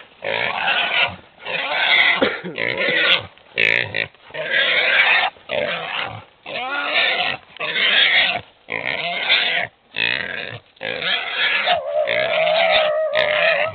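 A caught wild boar squealing over and over: loud, harsh squeals about a second long with short breaks between them, ending in a longer wavering cry.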